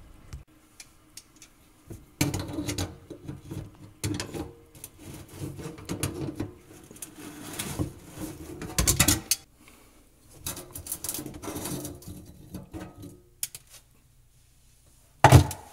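Channel-lock pliers turning a metal locknut off the threaded body of a kitchen sink strainer: irregular metal scraping and clicking as the nut is worked loose, with a louder clank about nine seconds in. A sharp knock comes near the end.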